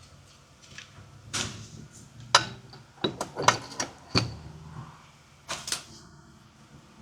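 Metal hand tools and parts clinking and knocking, about a dozen sharp clicks and clanks from about a second in until near the end, some ringing briefly.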